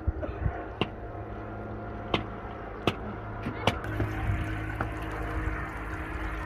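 Water poured from a kettle over greens in a metal bowl, broken by a few sharp knocks. From about four seconds in, a steady trickle of water draining out of the bowl of washed greens and dripping into a pot.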